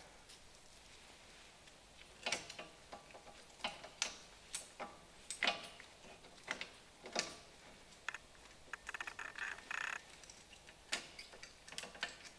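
Hand tools and metal brake parts clicking and clinking during drum-brake wheel cylinder work: a series of separate sharp metallic clicks and knocks, with a quick run of rapid ticks about nine to ten seconds in.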